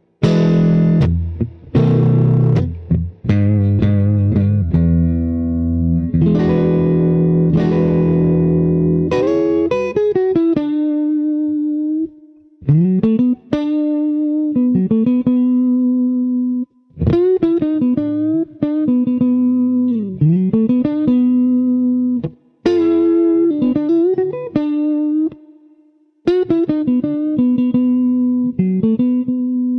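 Fender Stratocaster electric guitar played through a clean amp setting on the neck and middle pickups together: chords strummed for about the first ten seconds, then single-note lines with string bends that rise and fall in pitch.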